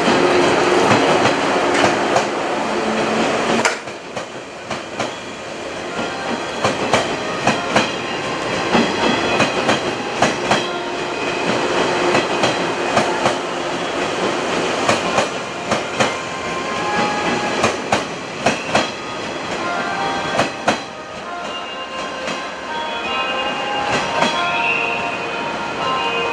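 A JR 113-series electric multiple unit running on the rails, its wheels clacking over rail joints at irregular intervals. The loud running noise drops suddenly about four seconds in.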